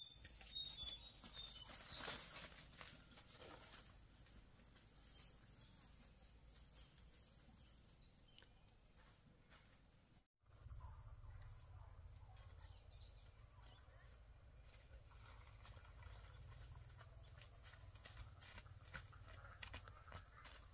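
Faint outdoor ambience dominated by an insect's steady high trill, with a few shorter trills and light scattered clicks. The sound cuts out briefly about halfway through.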